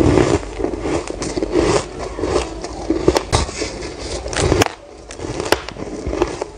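Close-miked biting and chewing of a block of fluffy, powdery ice: a dense run of crisp crunches, with a brief lull just before five seconds in.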